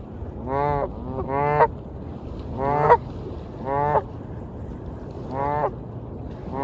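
Waterfowl calling repeatedly: about six short, clear-pitched honk-like calls spaced irregularly, over a steady background wash of water.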